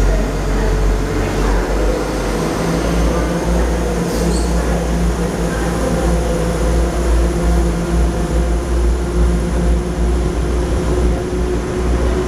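Class 172 Turbostar diesel multiple unit pulling out of a station, its underfloor diesel engines running steadily as it moves away along the platform.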